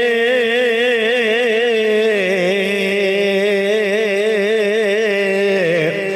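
A man's voice reciting an Urdu marsiya, holding the last syllable of a line in one long ornamented note that wavers up and down. The note steps down in pitch about two seconds in and again near the end.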